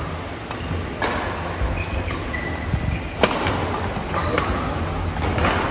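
Badminton rally: sharp smacks of rackets striking the shuttlecock, one about a second in, a loud one just past three seconds and a quick pair near the end, with short high squeaks of court shoes on the floor in between.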